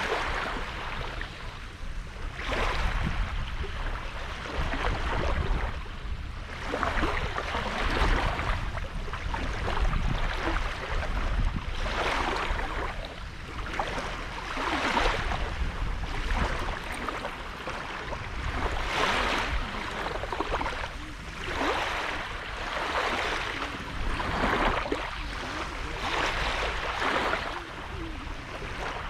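Small sea waves washing up on a sandy beach, one wash every second or two, with a low rumble underneath.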